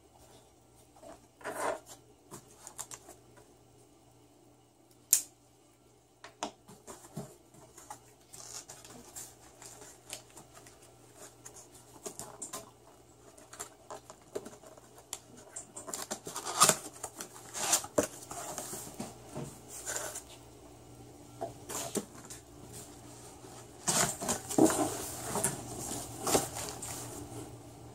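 Cardboard box being opened by hand: scattered clicks, scrapes and taps of cardboard and packing tape, with a longer stretch of rustling and tearing about three seconds before the end as the box lid is lifted.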